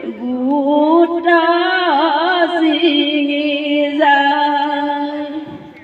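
A woman singing a biya naam, an Assamese wedding folk song, solo in long held notes that waver slightly. The voice fades out near the end.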